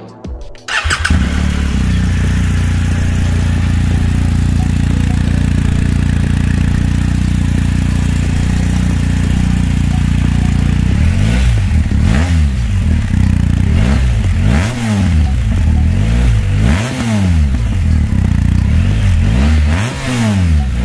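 2020 BMW R 1250 GS Adventure's boxer-twin engine through its stock exhaust: started about a second in, idling steadily, then revved in a series of throttle blips roughly every two seconds over the second half.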